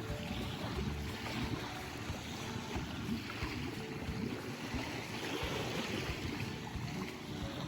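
Wind buffeting the microphone over small waves lapping at the shoreline, a steady rushing noise that swells and eases a little.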